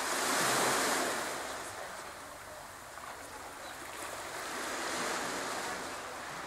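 Small waves breaking and washing onto a pebble beach, the surf swelling loudest in the first second and again about five seconds in.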